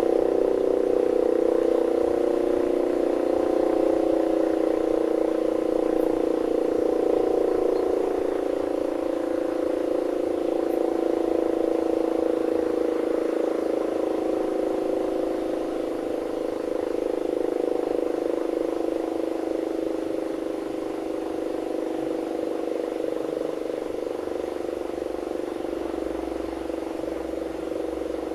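1930s Siemens & Halske electro-mechanical air-raid siren sounding a steady, loud tone of several pitches at once, wavering slightly and growing a little quieter towards the end.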